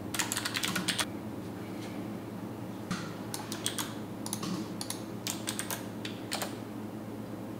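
Typing on a computer keyboard: several short bursts of rapid key clicks with pauses between them.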